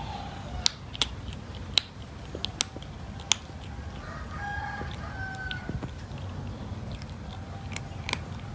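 A kitten crunching dry cat kibble: sharp, irregular crunches, most of them in the first three seconds and another near the end. A faint, drawn-out call sounds in the background about four to six seconds in.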